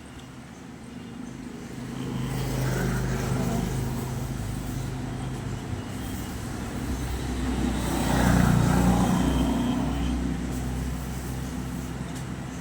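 A motor vehicle engine running close by, a steady low hum that grows louder about two seconds in and swells again to its loudest around eight seconds in.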